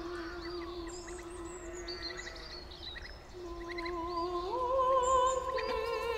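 Wordless sung note held steady, fading out, then returning and stepping up to a higher note about four and a half seconds in, where it takes on a vibrato and grows louder. Birds chirp throughout.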